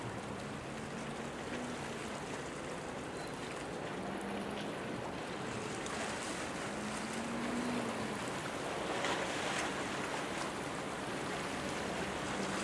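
Harbour ambience: a steady wash of wind and water noise, with a faint low engine hum that swells and fades a few times.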